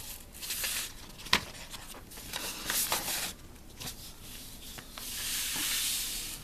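Paper being handled: rustling and rubbing, with a sharp click a little over a second in and a longer rustle near the end.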